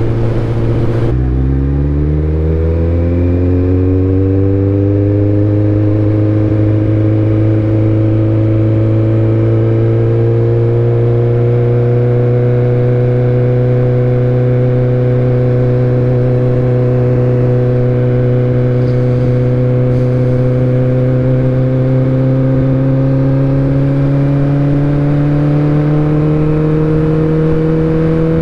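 2019 Kawasaki ZX-14R's inline-four engine heard from the rider's seat. About a second in the revs climb over a few seconds, then hold almost steady while cruising, creeping slowly higher.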